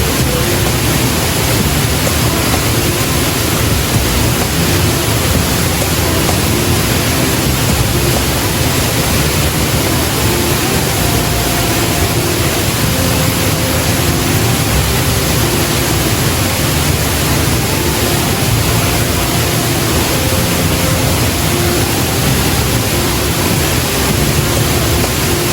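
Waterfall roaring, a loud, steady rushing of falling water.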